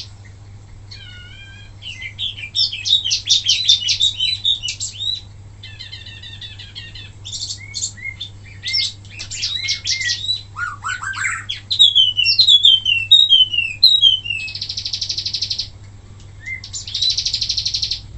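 Wambi mini songbird singing a varied, loud song: quick chattering trills, a run of clear falling whistled notes, and two fast buzzy trills near the end.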